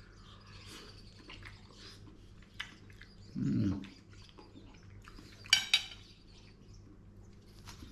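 A fork tapping and scraping on a ceramic plate during eating, with faint chewing. Two sharp ringing clinks of the fork against the plate come about five and a half seconds in. A short low falling voice sound, like an appreciative "mmm", comes a little after three seconds.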